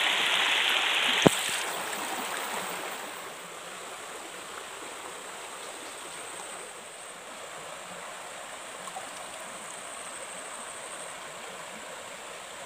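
Shallow rocky stream running over stones, a loud rush for the first second or so that ends with a sharp click, then a steadier, quieter flow of water.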